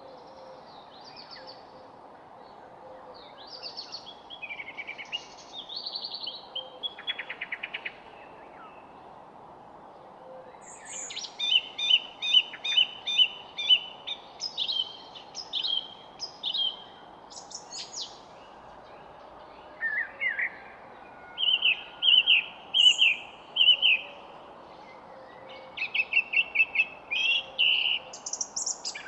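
Songbirds singing in a series of phrases of quick, repeated chirped notes, with short pauses between phrases, over a steady background noise.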